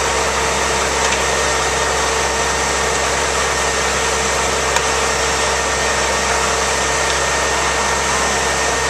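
Fire engine's engine running steadily close by: a loud, unchanging drone with a constant hum and a thin steady whine over a wash of noise.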